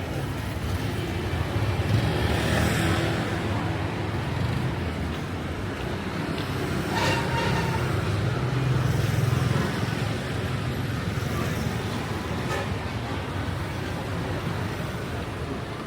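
Street traffic: vehicles passing with a steady low engine rumble that swells twice as they go by, and a brief sharp sound about seven seconds in.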